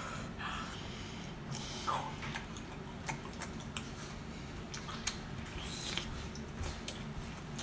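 Close-up wet chewing and mouth sounds of someone eating: irregular soft smacks and clicks.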